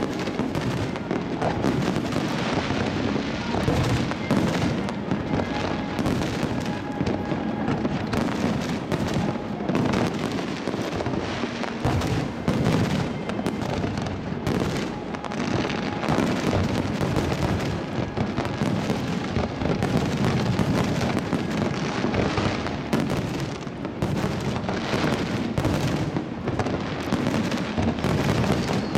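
Aerial fireworks going off in a continuous barrage: many overlapping bangs and crackles with no break.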